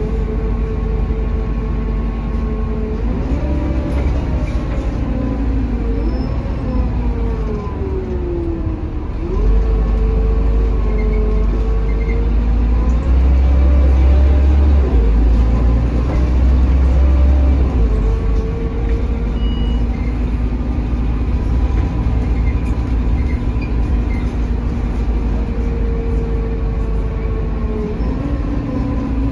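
Interior sound of a Mercedes-Benz OH1830LE city bus under way, its OM926 inline-six diesel and ZF Ecomat automatic heard from the passenger saloon over a steady low rumble. The engine note rises and falls with speed, gliding down and then jumping back up about nine seconds in.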